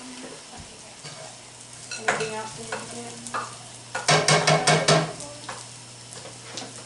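Minced garlic and oregano sizzling in a skillet over a gas burner while being stirred, with a quick run of about six strokes against the pan about four seconds in.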